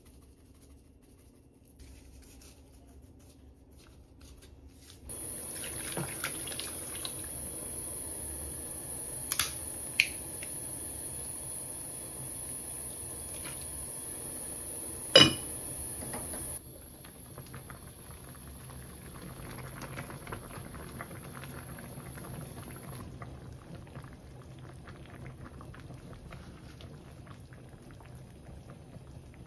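Liquid poured into a saucepan of kimchi stew for about ten seconds, with a few sharp clinks, the loudest near the end of the pour. A quieter steady hiss follows.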